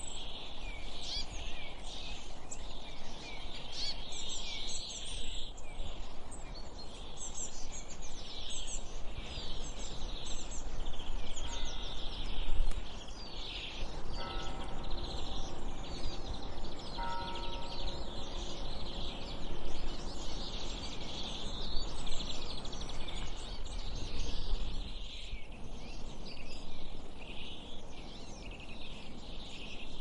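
A dense chorus of small wild birds chirping and twittering over a steady low rumble of outdoor noise. A faint held tone sounds for a few seconds near the middle.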